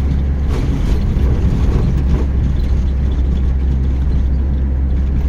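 Road noise of a car heard from inside while driving: a steady low drone of engine and tyres.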